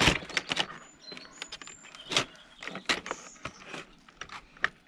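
Screwdriver prying at the plastic cleaner head of a Dyson DC41 vacuum, with a string of sharp clicks, knocks and scraping as the stiff brush bar, wedged in with dirt, is worked loose. A few brief high squeaks sound in the first two seconds.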